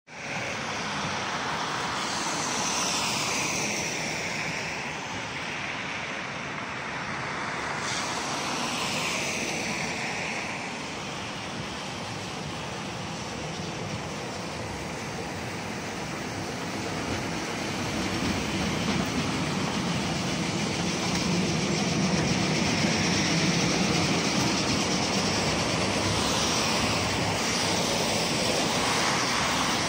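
KTM tram car running along street tracks toward the listener, its low rumble growing louder over the second half and at its loudest as it passes close. Underneath is a steady hiss of traffic on a wet, slushy road, with two vehicles swishing past about three and nine seconds in.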